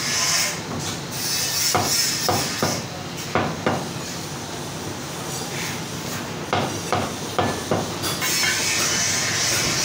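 A meat cleaver chopping mutton on a wooden chopping block. There are two runs of five or six quick chops, one about two seconds in and another about six and a half seconds in.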